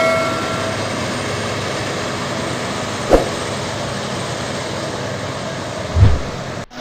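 New Holland self-propelled forage harvester running steadily as it chops maize and blows it into a trailer, with a short tone fading out at the start. A sharp knock comes about three seconds in and a low thump near the end, then the sound cuts off suddenly.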